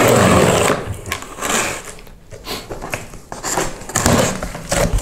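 Utility knife slicing through the packing tape along the top seam of a cardboard box. There is one long, loud rasping cut at the start, then a series of shorter rasping strokes.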